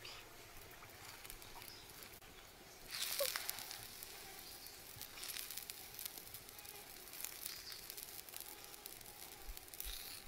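Whole small squid hitting a hot pan over a wood fire: a sharp sizzle about three seconds in that settles into steady hissing and crackling, flaring up again at the very end as more squid go in.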